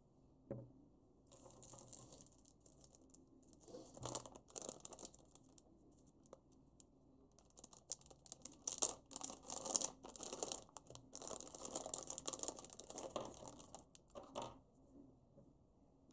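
Clear plastic bag crinkling and rustling in irregular bursts as hands open it and pull out the contents, with a single light knock near the start.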